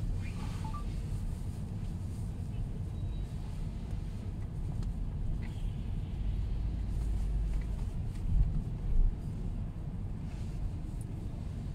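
Low, steady road rumble of a car driving slowly in traffic, heard from inside the cabin, with two short low thumps about eight and nine seconds in.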